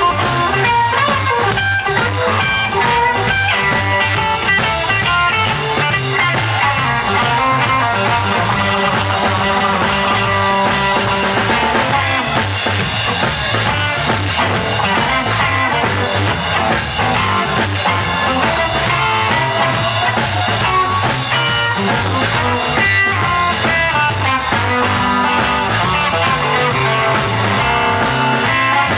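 Live electric blues band playing, with electric guitars over a drum kit in a steady groove.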